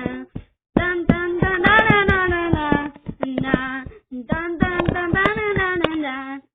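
A child singing a wordless tune on repeated 'dun dun' syllables, in a few phrases with short breaks between them.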